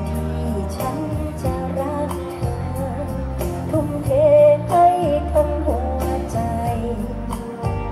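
A woman singing a Thai song live into a microphone over a band's accompaniment, her melody sliding between held notes above a steady bass and regular drum beats.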